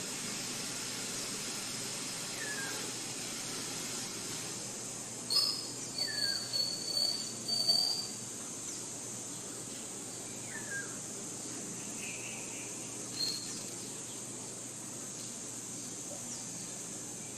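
Forest ambience: birds calling over a steady high hiss. A short falling chirp repeats about every four seconds, and a louder run of high, sharp calls comes about five to eight seconds in.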